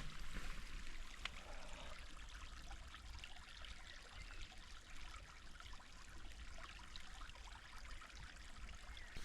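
Faint, steady trickle of running water, with a low rumble of wind on the microphone.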